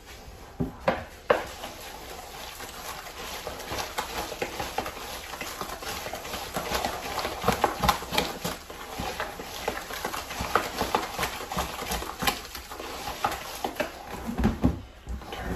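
Ground turkey mixed with pumpkin purée and mashed blueberries being stirred in a bucket: a steady run of short squishes and knocks.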